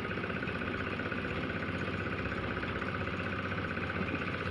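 An engine running steadily at idle, with an even, rapid pulse and no change in speed.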